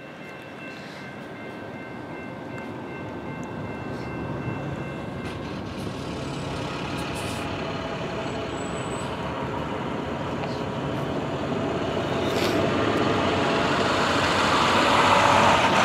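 CSX EMD SD50-2 diesel locomotive running light, its engine growing steadily louder as it approaches.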